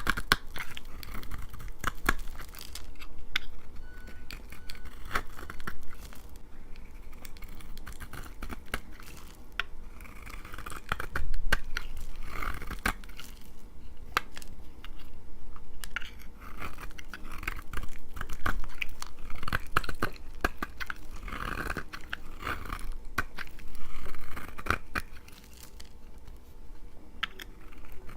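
A knife cutting dry laundry soap, with irregular crisp crunching and crackling, louder in a few clusters.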